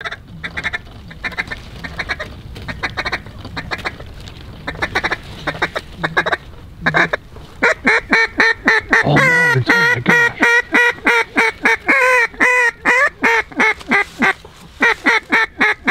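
Mallard duck call blown in quick rhythmic strings: soft rapid chatter through the first half, then from about seven seconds in loud quacks in a steady cadence, with falling runs of notes, working a flock of passing ducks.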